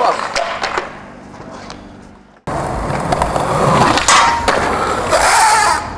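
Skateboard wheels rolling over paving and fading away, then, after a sudden cut, a skateboard rolling loudly on concrete with board clacks as a trick is thrown at a metal rail.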